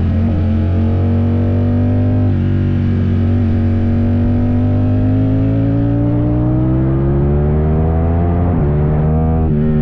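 Ducati Streetfighter V4 S's V4 engine through an Arrow exhaust, pulling hard in second gear: the note holds low for a few seconds, then rises steadily as the bike accelerates. There is a brief dip near the end, and then the pitch falls as the throttle closes.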